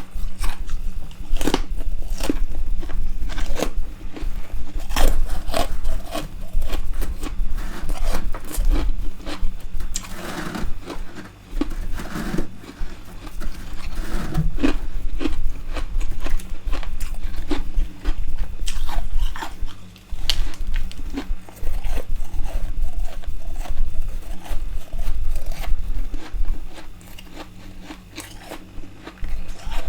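Freezer frost being bitten and chewed close to the microphone: repeated crisp crunches, one after another.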